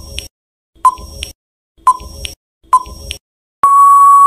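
Quiz countdown timer sound effect: a short electronic blip about once a second, four times, then a long steady beep near the end signalling that time is up.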